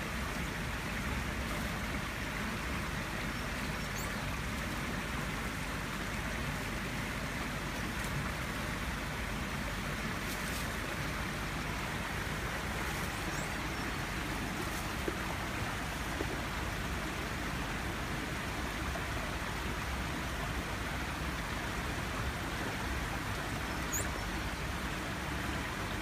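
Steady outdoor background noise, an even hiss, with a few faint, short high-pitched chirps, two of them close together near the end.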